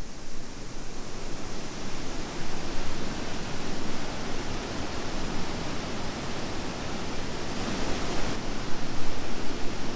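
A 16-metre waterfall, Auttiköngäs, rushing: a steady, even noise of falling water.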